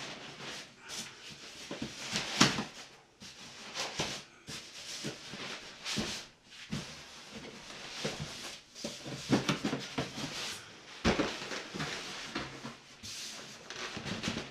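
Cardboard box scraping and rubbing as a snug-fitting outer box is worked off an inner box by hand, with irregular knocks and bumps. The loudest knocks come about two and a half seconds in and again around nine to eleven seconds.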